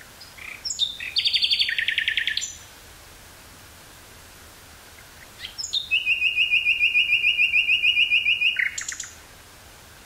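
Common nightingale singing two song phrases about three seconds apart. Each opens with a few short notes and runs into a fast series of repeated notes. The second phrase is a long, rapid rattle of about eight notes a second that ends with a few lower notes.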